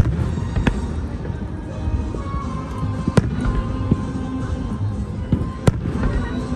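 Aerial firework shells bursting overhead: several sharp bangs, the loudest about three seconds in and again near the end, over a continuous low rumble of distant booms.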